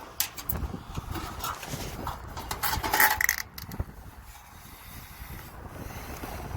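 Scattered metallic clicks, clinks and scrapes of hand work on a sheet-metal outdoor air-conditioning unit, with a louder ringing clank about three seconds in.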